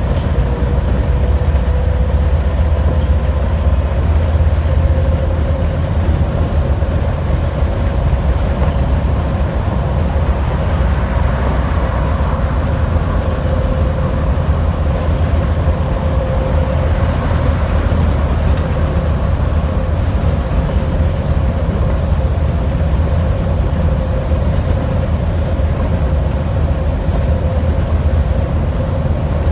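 Scania CN230UB (Omnicity) single-decker bus driving at a steady speed, heard from inside the passenger saloon: a constant low engine and road rumble with a steady whine running over it. A brief faint hiss comes about halfway through.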